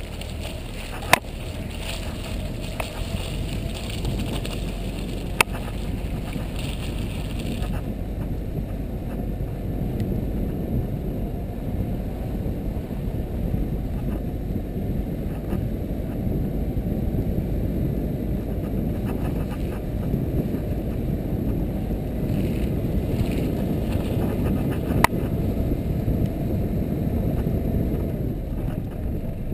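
ATV running along a snow-covered track, heard as a steady, muffled low rumble, with three sharp clicks.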